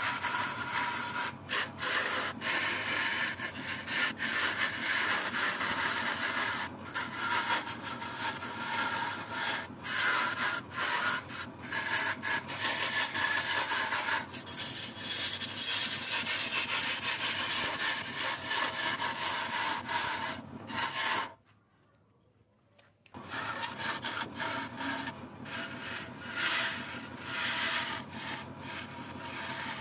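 Wood lathe turning a wooden vase, with a turning tool cutting into the spinning wood in a continuous rough scraping. The cut breaks off for about a second and a half about two-thirds of the way through, then resumes.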